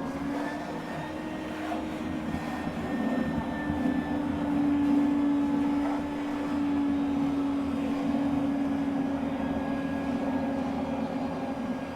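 Wet vac motor running with a steady hum, its level rising and falling a little as it sucks the leftover water out of a toilet.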